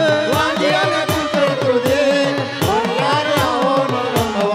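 A woman sings a devotional song with a wavering, ornamented melody, accompanied by a harmonium's held notes and a dholak beating out a steady rhythm with bass strokes that dip in pitch.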